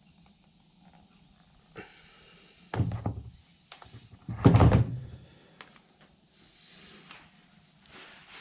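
Parts of a disassembled UTV front differential being handled on a workbench: two short clattering knocks about a second and a half apart, the second louder.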